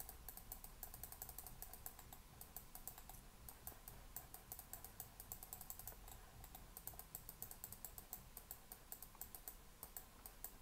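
Faint, quick, irregular clicking and tapping from hands at a computer's input devices, several clicks a second, over a low steady hum.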